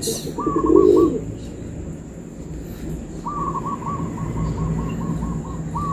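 A pigeon cooing briefly in the first second, then a bird giving a rapid, even series of short piping notes, about five a second, for the last few seconds. A faint steady hum runs underneath.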